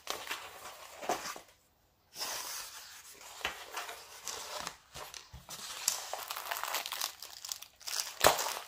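Plastic packaging and the rolled diamond-painting canvas's clear protective film crinkling as they are handled and spread out, with a short gap about two seconds in and a sharp tap near the end.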